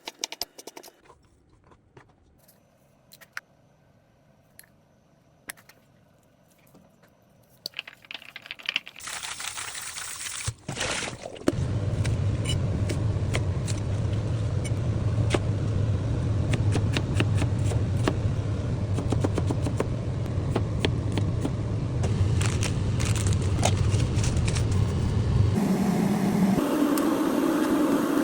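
Wok stir-frying: a few light clicks, then about nine seconds in a steady sizzling rush starts, soon joined by a strong low hum, with frequent clicks and scrapes of the spatula against the wok throughout.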